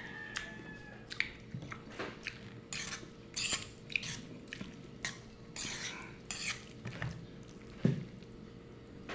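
Eating utensils clinking and scraping against a dish in irregular, uneven strokes, with one sharper knock near the end.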